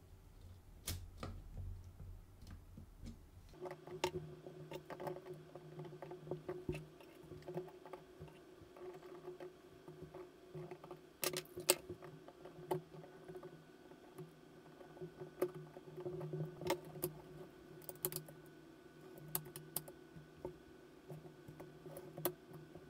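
Scattered small clicks and ticks of the exposed gears and mechanism parts of a Hasselblad 2000FC camera being turned and handled by hand while the gear timing and alignment are tested. A faint steady hum sits behind from about four seconds in.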